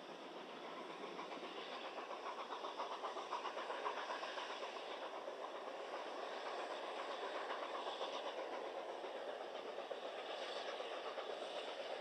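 Narrow-gauge Beyer Garratt steam locomotive working hard up a grade with a train, its exhaust chuffs coming in a fast, even beat. It grows louder over the first few seconds as the train approaches, then holds steady.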